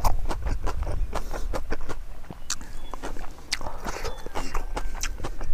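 A man chewing pig trotters close to a clip-on microphone: a steady run of sticky mouth clicks and lip smacks.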